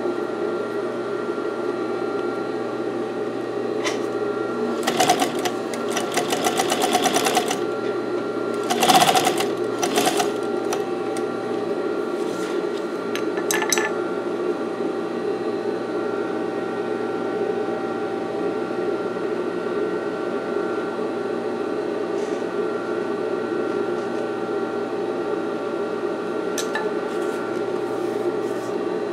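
Singer 241-12 industrial lockstitch sewing machine stitching a folded leather strip. The motor hums steadily, and short runs of rapid needle clatter come about five seconds in and again near ten seconds.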